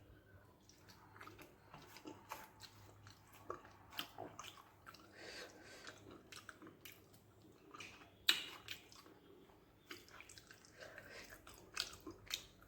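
Close-up chewing of rice with brinjal and okra in a spicy gravy: soft, wet mouth sounds with irregular smacks and clicks. One sharper smack comes about eight seconds in.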